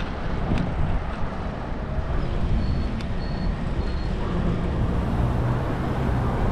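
City street traffic heard from a moving bicycle: a steady low rumble of road noise and passing cars. A car engine's low hum grows clearer over the last second or so.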